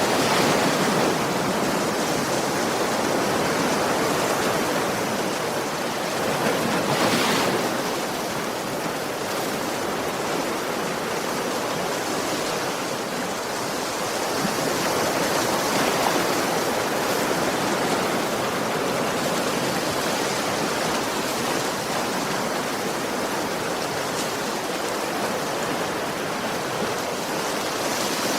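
Sea waves breaking gently on a shore: a continuous wash of surf that swells and falls, loudest about seven seconds in, with smaller swells at the start and around sixteen seconds in.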